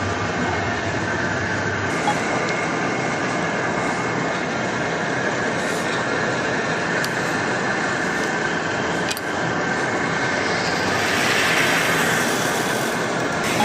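A lathe running steadily with a low hum, a few brief clicks and a louder hissing swell about eleven seconds in.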